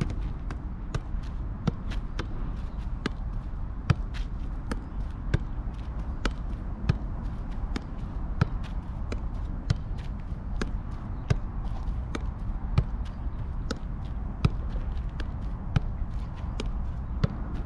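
Soccer ball being juggled, the ball striking foot and thigh in turn with dull thuds at an even pace of about one and a half touches a second.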